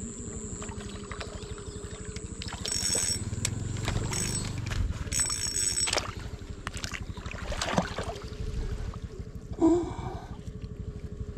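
Spinning reel and rod being worked as a hooked fish is reeled in and landed, with a steady low mechanical rattle and twice a brief high metallic ringing.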